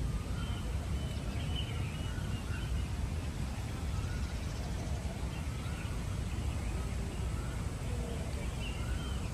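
Outdoor park ambience: a steady low background rumble with scattered faint, short bird calls.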